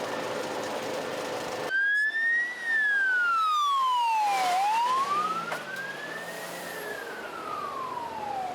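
A steady rushing noise with a low hum cuts off suddenly, and an emergency vehicle siren takes over, wailing slowly up and down about every four seconds.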